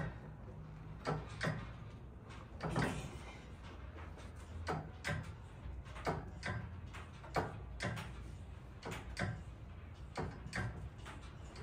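Standing leg-curl machine clanking through repetitions: the weight stack and lever arm knock once or twice about every second as the leg curls and lowers.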